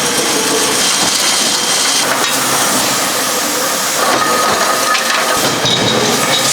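Steady, loud hissing noise with no distinct hammer blows.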